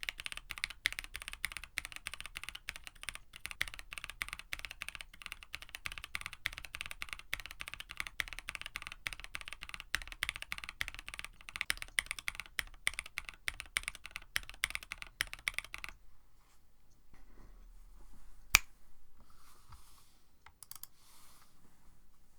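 Fast, continuous typing on a KBD67 Lite mechanical keyboard with an FR4 plate, lubed Black Cherry Pie linear frankenswitches (Cherry top, NK Cream stem, JWK bottom) and GMK Striker clone keycaps. About three-quarters of the way through the typing stops, and a single sharp click follows a couple of seconds later.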